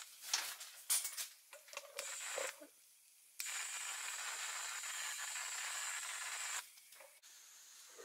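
Redline EZ50 powder coating gun spraying powder with compressed air: a few short hisses and clicks, then a steady hiss for about three seconds starting about three and a half seconds in, which stops near the end.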